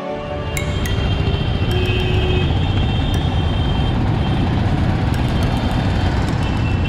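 Busy street traffic: auto-rickshaws and other vehicles passing, a steady low rumble with a few scattered clicks and faint high tones.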